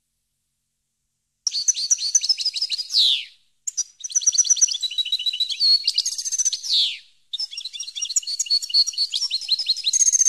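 European goldfinch singing: three phrases of rapid, high twittering trills, each ending in a falling note, starting about a second and a half in.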